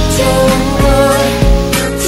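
Background pop music with a sung vocal and a steady beat.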